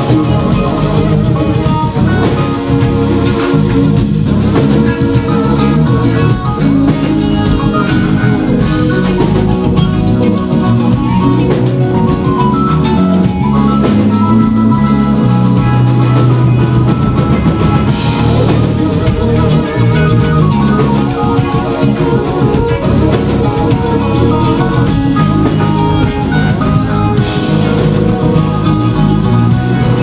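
Live funk band playing an instrumental passage: electric guitar, Korg keyboards and drum kit, loud and continuous.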